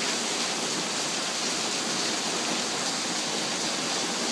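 Heavy summer rain falling outdoors, a steady hiss of rain with no breaks.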